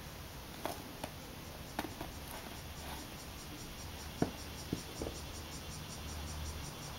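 Scattered soft clicks and light scuffs from a tiny calico kitten shifting and pawing about on a towel in a foil-lined cooler bag, the sharpest a little after four seconds, over a faint steady hiss. About halfway in, a faint, rapid, even high-pitched pulsing sets in behind it.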